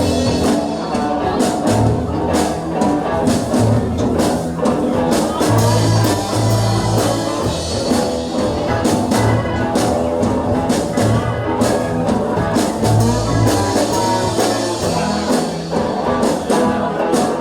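Live rock and roll band playing an instrumental intro: electric guitar, bass and drum kit with a steady beat.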